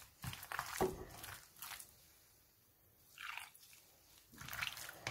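Chopped pork sausage filling being kneaded by a gloved hand in a bowl, in irregular strokes, with a pause of about a second midway.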